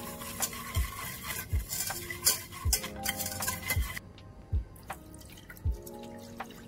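Wire whisk scraping and clinking against a stainless steel pot while stirring sugar into melted butter, stopping about four seconds in. Background music with a steady beat plays throughout.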